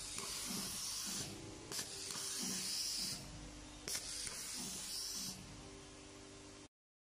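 Automatic cable tie gun working through its cycle three times, about two seconds apart. Each cycle is a sharp click followed by about a second and a half of air hissing as the next tie is fed to the gun.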